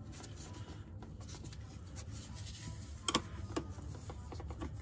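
A 13 mm spanner working the nut on a gearbox selector linkage as it is tightened: faint scraping and rubbing of metal, with two sharp metallic clicks about three seconds in.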